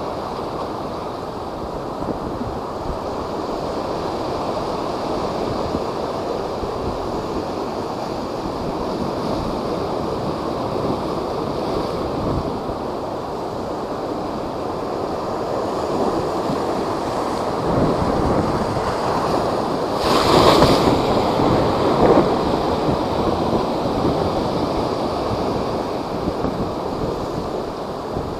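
Typhoon-driven high waves surging and breaking, a steady rush of water with wind on the microphone. A bigger wave crashes about twenty seconds in, the loudest moment.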